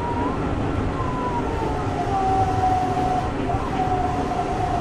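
On-board running sound of an Okinawa Urban Monorail (Yui Rail) 1000-series three-car train: a steady rumble from the rubber-tyred running gear under a thin electric traction-motor whine. The whine falls in pitch over the first couple of seconds, then holds steady.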